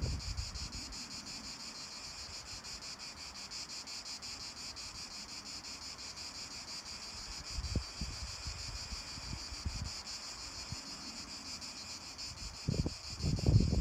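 A steady, high-pitched chorus of summer insects, pulsing rapidly. Wind buffets the microphone briefly about eight seconds in and again near the end.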